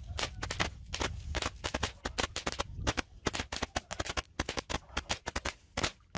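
Firecrackers crackling: a rapid, irregular run of small sharp pops, several a second, with no pause.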